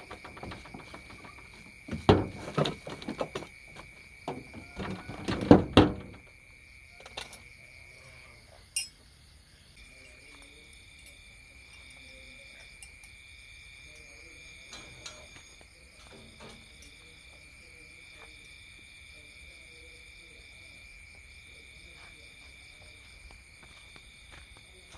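A few loud knocks and thumps in the first several seconds as a padded vehicle seat lid is lowered and shut over its storage box. Then a steady night insect chorus, crickets with a constant high trill and a second, pulsing trill above it.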